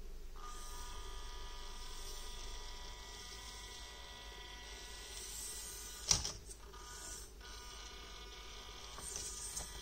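Micro RC crawler's small N20 geared motor whining steadily as the 1/32 truck climbs over rocks. A sharp knock comes about six seconds in, the whine stops briefly, then picks up again.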